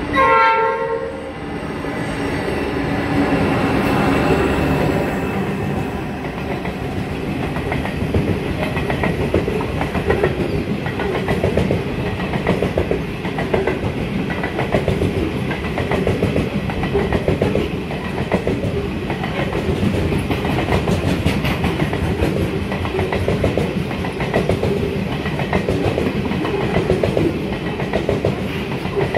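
A freight train led by NSW 81 class diesel-electric locomotives gives one horn blast about a second long as it reaches the station. The locomotives' engines swell past, and then a long string of hopper wagons rolls through with a steady, rhythmic clickety-clack of wheels on the rails.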